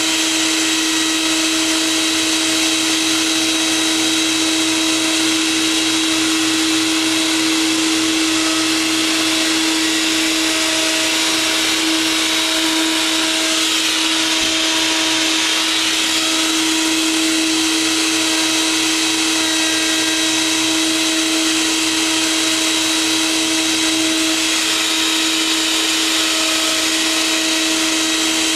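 Wood router on a homemade router-lathe copying rig, running with a steady high whine and hiss as it shapes a stick of hardwood. The hiss swells for a few seconds about halfway through.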